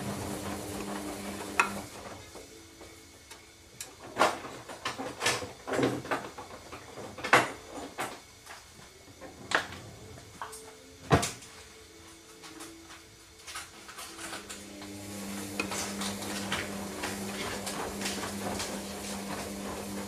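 Hoover Dynamic Next washing machine on a wash cycle: the drum motor hums, stops about two seconds in, and starts again about fifteen seconds in. In between, a series of sharp clicks and knocks comes from the wet laundry tumbling in the drum.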